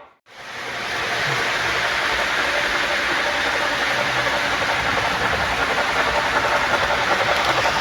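O scale model train running on the layout track: a steady rolling rumble of wheels and motor that starts after a brief drop about a quarter second in.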